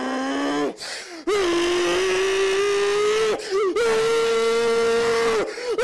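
A man screaming into a headset microphone in long held yells: a short cry at the start, then two sustained screams of about two seconds each, the second pitched higher than the first.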